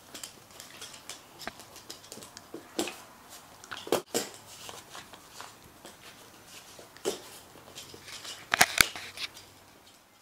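Shiba Inu dogs' claws clicking and scrabbling on a hardwood floor as they move about, in irregular sharp clicks, with a few louder knocks about 4 s in and a cluster just past 8 s.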